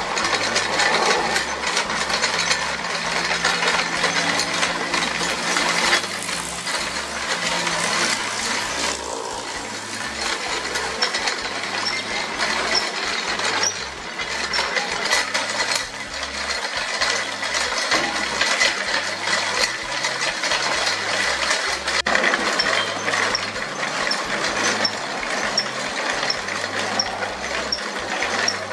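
Bicycle chains, sprockets and shafts of a pedal-driven three-propeller drive rattling and clicking continuously as it is pedalled, with the propellers spinning in the air.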